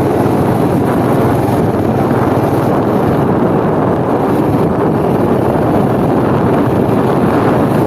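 Wind rushing over the microphone on a moving motorcycle, with the motorcycle's engine running underneath; a loud, steady rush with no change.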